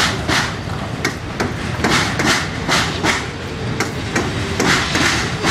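Union Railroad coke hopper cars rolling past close by: their wheels clack over the rails in a running series of sharp knocks, often in pairs, over a steady low rumble.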